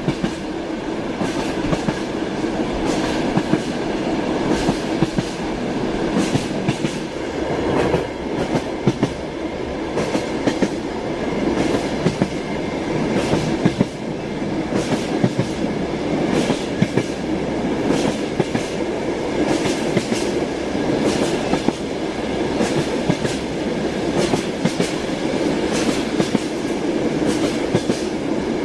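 Train wheels clattering over the rails: a steady rumble of a moving railway carriage with repeated irregular clicks and knocks from the wheels.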